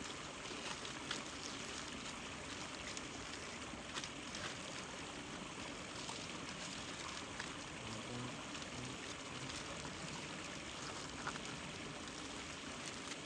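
A large campfire burning hard: scattered sharp crackles and pops over a steady rushing hiss.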